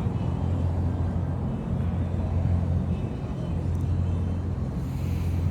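Steady low engine hum, like a vehicle idling, with an even, unchanging pitch.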